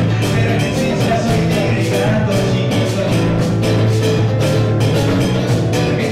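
Live band music: a man singing over a nylon-string acoustic guitar, with a steady drum beat.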